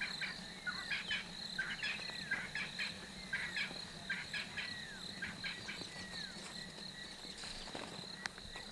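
Insects, crickets by their steady trill, keep up an even high-pitched drone. Over it come clusters of short, high chirps and a few falling whistles for about the first six seconds, thinning out after.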